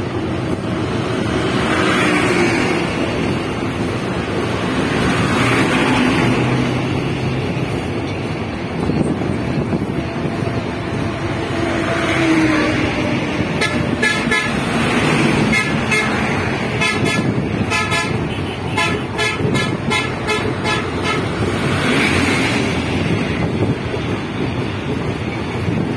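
Intercity passenger train running fast across a long bridge, heard from an open carriage window: a steady rushing rumble of wheels and air that swells and fades. Near the middle comes a run of quick, evenly spaced clicks as the wheels pass over the track.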